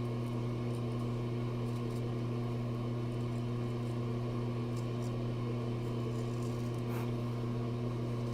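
Steady low electrical or mechanical hum, a droning tone with overtones, like a fan or air conditioner running in a small room. A few faint short scrapes break in near the middle and end.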